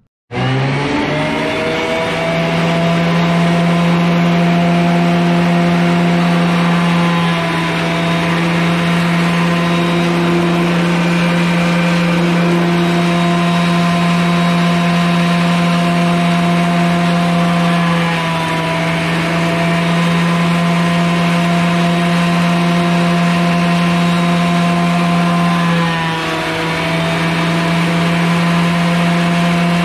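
Grizzly 12½-inch portable thickness planer switched on, its motor and cutterhead spinning up over about two seconds, then running free with a steady loud whine. The pitch sags briefly three times.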